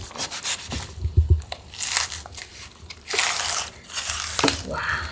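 Kitchen knife cutting through napa-cabbage kimchi: a series of irregular wet, crunchy cuts.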